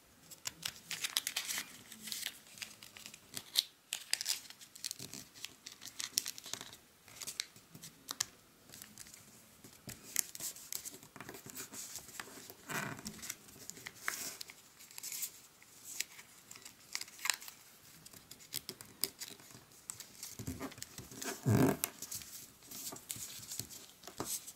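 Origami paper crinkling and rustling in short, irregular bursts as fingers squash-fold a flap and crease it flat, with one louder knock near the end.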